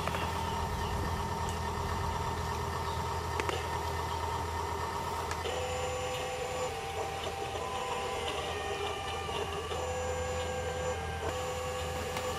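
Electric motors and gearing of a remote-control model excavator whining steadily over a low hum. The whine shifts pitch about five seconds in and cuts in and out a couple of times near the end.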